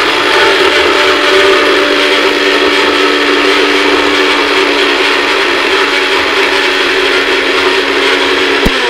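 A 500-watt Sun-brand mixer grinder's motor running at full speed, its small dry-grinding jar powdering rock sugar: a loud, steady whine with a rushing grind. It cuts off with a click near the end as the press-to-run button is released.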